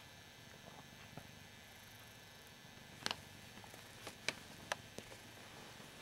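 Faint, steady purring of a Ragdoll cat, with a handful of sharp clicks in the second half.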